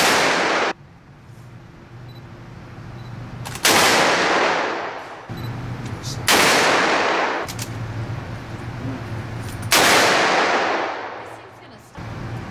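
Handgun shots fired on an indoor range, about three seconds apart: one at the very start that is cut off short, then three more. Each crack rings on in a long, fading echo.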